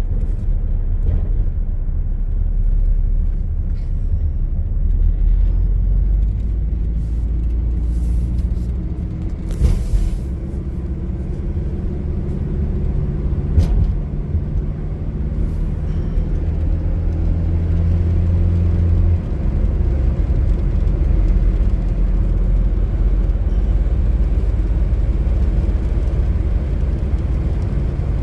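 A 2000 Nissan Frontier's KA24DE 2.4-litre four-cylinder engine and road noise as the pickup is driven, a steady low rumble whose engine pitch rises and falls with speed. Two short knocks come about a third of the way in and again about halfway.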